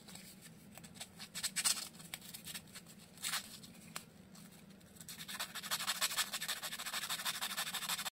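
Electrical contacts in an electric motor's end cover being scraped clean with a thin abrasive strip: a few separate scrapes, then a quick run of rapid back-and-forth rubbing strokes from about five seconds in.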